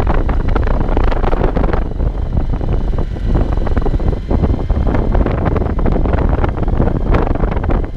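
Heavy wind buffeting on the microphone of a camera on a moving motorcycle, with the motorcycle's engine and tyres on a gravel road underneath. The sound changes character about two seconds in.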